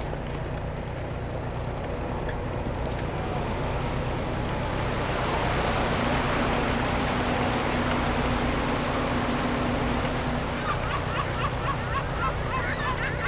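A shrimp cutter's engine runs steadily while water rushes along the hull, the rush swelling mid-way. Near the end, gulls start calling over the boat.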